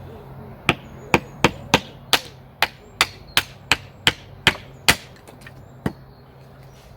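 Wood being chopped into small pieces: about a dozen sharp, quick chopping strikes, two or three a second, then a single strike about a second after they stop.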